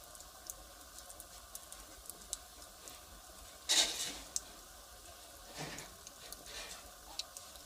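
Wood fire crackling: scattered sharp snaps and ticks from burning firewood over a faint steady hiss, with a louder burst of crackle about four seconds in and a smaller one a couple of seconds later.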